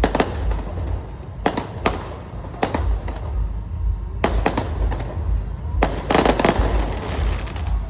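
Aerial fireworks bursting: a string of sharp bangs, one every second or two, with a quick crackling run of reports about six seconds in, over a constant low rumble.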